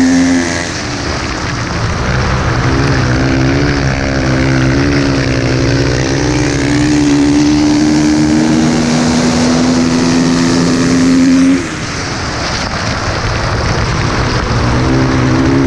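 Dirt bike engine running hard at high revs down the straight, its note climbing slowly. The throttle is backed off just after the start and again near twelve seconds, then opened back up near the end.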